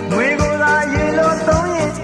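Burmese pop song: singing over a band with a steady beat.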